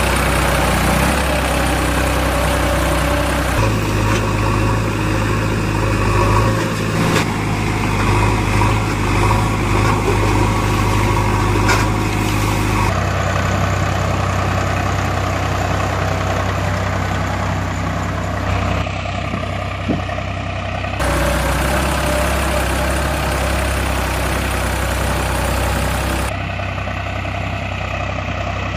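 Engine idling steadily, a recorded engine sound laid over the picture rather than anything the plastic toys make; its tone changes abruptly at several splices.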